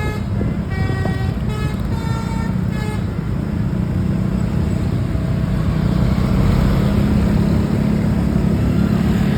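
Bus basuri 'telolet' horn playing a quick tune of stepped notes, which stops about three seconds in. The bus's engine and road noise then run on, growing louder as it comes closer.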